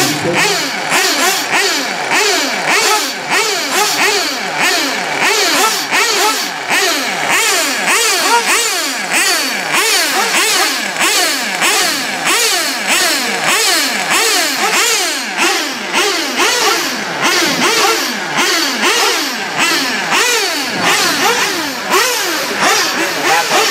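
Several small, high-revving nitro RC car engines, their overlapping pitches rising and falling again and again as the cars accelerate and brake around the track.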